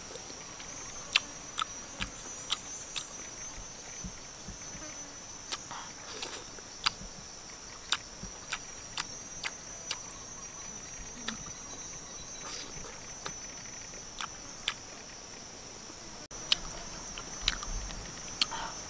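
Mouth sounds of eating grilled snails: sharp lip smacks and chewing clicks at irregular intervals. Behind them runs a steady high-pitched insect drone.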